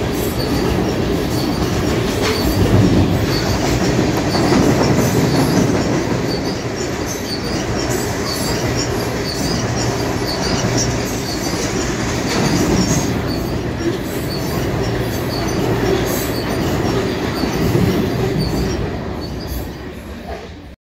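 Freight train rolling past close by: a steady loud rumble of railcars and wheels on the rails, with faint high wheel squeal now and then. It cuts off suddenly just before the end.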